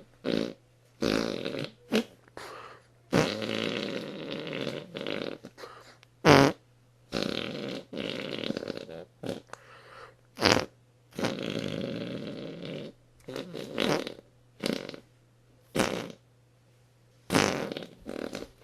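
A long string of fart sounds: about fifteen bursts with short gaps between them, some drawn out for a second or two and some short and sharp, over a steady low hum.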